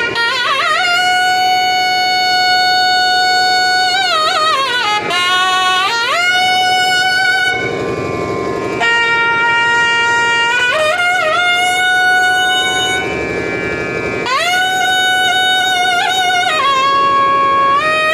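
Nadaswaram playing a slow melodic passage in raga Sindhubhairavi: long held notes linked by sliding, wavering ornaments. The melody breaks off briefly about seven and a half seconds in and again about thirteen seconds in.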